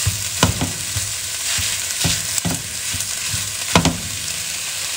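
Raw ground turkey sizzling in a hot nonstick pan of sautéed peppers and onion as a spatula breaks it up, scraping and knocking against the pan several times, loudest near the end.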